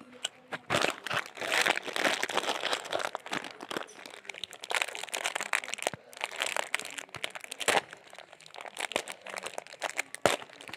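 Plastic Kurkure snack packet being handled and opened, crinkling and crackling irregularly throughout, with some crunching.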